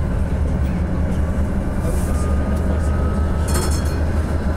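Tatra T3 tram with accelerator control running along the street, heard from inside the car: a steady low rumble of motors and running gear with a faint rising whine. A brief high clatter comes about three and a half seconds in.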